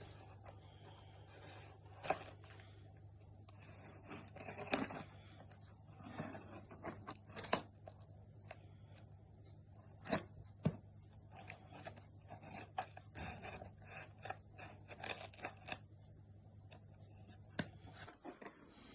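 Hands opening a delivery package: packaging tearing, rustling and scraping, with scattered sharp clicks and knocks. A faint steady low hum runs underneath and stops near the end.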